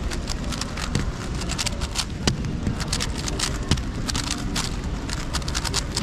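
GAN 12 MagLev speedcube being turned rapidly with one hand: a fast, irregular run of light clicks over steady background noise.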